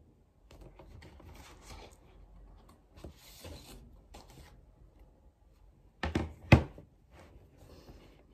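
Glossy magazine pages rustling and flapping as they are turned by hand, with two sharp knocks of something hard on the desk about six seconds in, the loudest sound.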